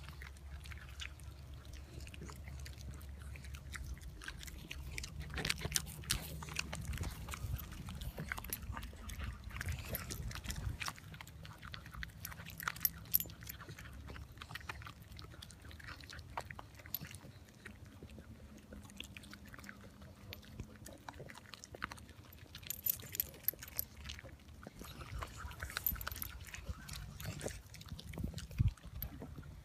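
Miniature schnauzers chewing and crunching live black soldier fly prepupae, a scatter of short sharp crunches and clicks. A low rumble runs under the first ten seconds or so.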